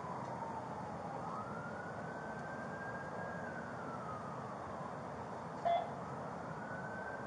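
An emergency vehicle's siren wailing, its pitch sliding slowly down, up, holding, then down and up again over cycles of several seconds, above a steady background hiss. A short blip, the loudest moment, sounds about three-quarters of the way through.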